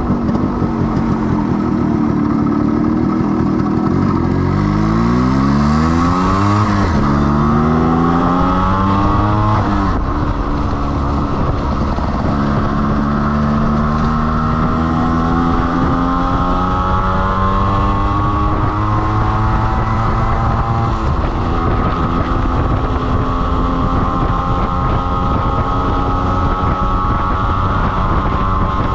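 Yamaha RXG 135's single-cylinder two-stroke engine pulling through the gears on a ride. The engine pitch climbs, falls back at a gear change about 7 seconds in and again about 10 seconds in, then rises gently and holds steady at cruising speed.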